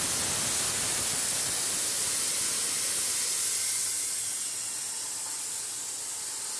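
CNC plasma cutter's torch cutting through steel plate: a steady hiss that eases off slightly about four seconds in.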